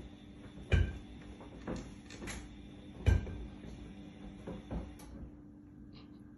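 Knocks and thumps of a cat's paws as it climbs from the top of a kitchen shelf unit onto a stainless steel range hood, with two heavy thuds, the loudest about three seconds in.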